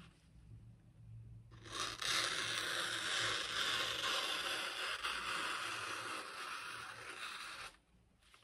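The M4 steel blade of a Spyderco Bradley 2 folding knife slicing through a sheet of thin lined paper: one long, steady rasp lasting about six seconds, starting about a second and a half in. The cut is clean, the sign of a sharp factory edge.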